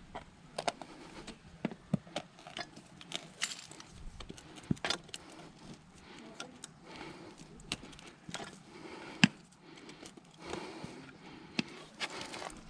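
Scattered, irregular clicks, taps and knocks of objects being handled, with one sharper knock about nine seconds in.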